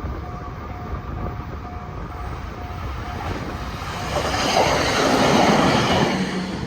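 Level-crossing warning bell ringing about twice a second while a 521 series electric multiple unit passes over the crossing. The train's rush of wheel and running noise swells about four seconds in, is loudest over the next two seconds, then eases as the bell goes on.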